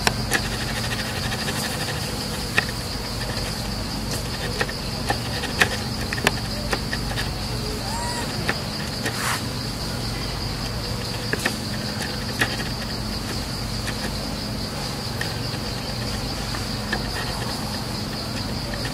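Forest insects droning: a steady, high-pitched buzz that does not change, with scattered sharp clicks over it.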